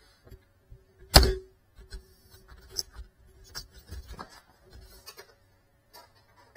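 Handling noise on a crashed FPV drone's camera as it is picked up and moved: one loud knock about a second in, then scattered light clicks, bumps and rubbing, with a faint steady tone underneath.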